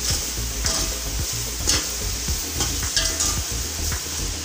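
A slotted steel spatula stirring and scraping a spiced masala as it fries in oil in an aluminium pot: a steady sizzle with repeated scraping strokes against the pot.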